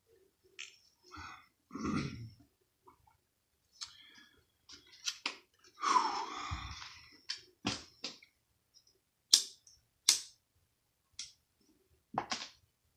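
A man's breathing and mouth sounds. A low breathy sound comes about two seconds in and a longer hissing exhale about six seconds in, followed by a few sharp clicks in the last few seconds.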